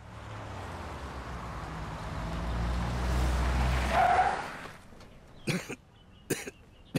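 Car engine running, its noise swelling to a peak about four seconds in with a brief squeal, then falling away. Three short, sharp sounds follow near the end.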